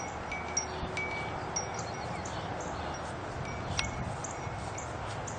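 Short, high chiming tones ring now and then at the same few pitches over a steady background hiss, with a single sharp click about four seconds in.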